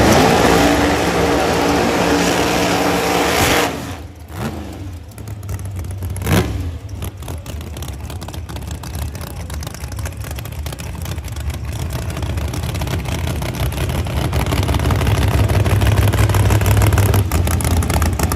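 Drag racing cars' engines at full throttle, very loud for about three and a half seconds and then dropping away suddenly. After that a lower engine rumble swells slowly toward the end.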